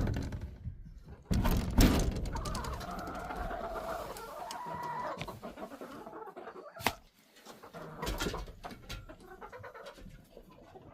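Chickens clucking in the coop, with pitched wavering calls for a few seconds. Before them come a sharp click at the start and a loud knock about a second in, as the coop door is unlocked and opened.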